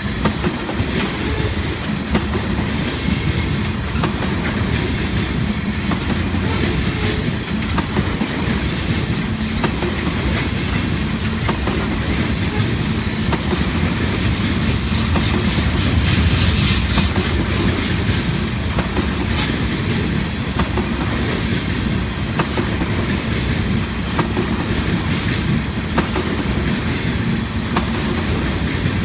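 Tank cars of a long Union Pacific oil train rolling past: a steady rumble of steel wheels on rail with a regular clickety-clack as the wheels cross rail joints. A brief high wheel squeal comes about two-thirds of the way through.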